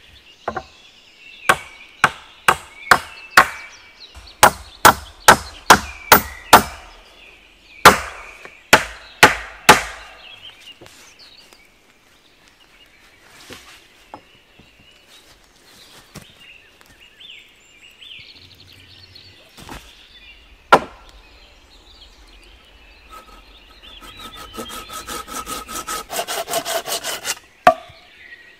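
Hatchet chopping into a green wooden pole: about twenty sharp strikes, roughly two a second, over the first ten seconds. Near the end a hand pruning saw rasps through a pole end for a few seconds with quick, even strokes.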